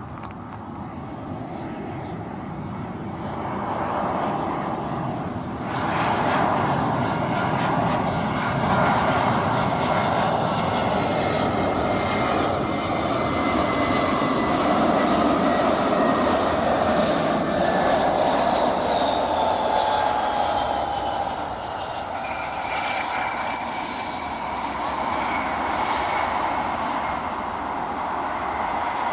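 Jet engines of an arriving Airbus A320 passing by. A steady roar swells over the first few seconds, and its whining tones slowly fall in pitch.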